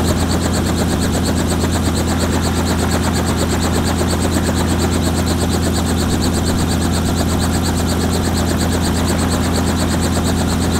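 Robinson R44 helicopter running on the ground during warm-up after a cold start, before flight idle. Its six-cylinder Lycoming piston engine runs steadily and the main and tail rotors turn, giving a fast, even chopping beat over a steady low hum.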